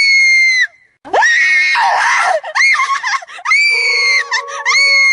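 Shrill, high-pitched screams, about five short cries in a row with a brief break just before a second in; a steady drone joins under the last ones.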